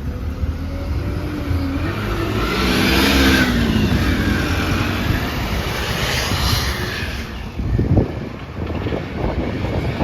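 Alexander Dennis Enviro200 bus's diesel engine pulling away, its note rising over the first few seconds, with a high turbo whistle that swells twice; the uploader puts the whistle down to a turbo leak. A thump about eight seconds in.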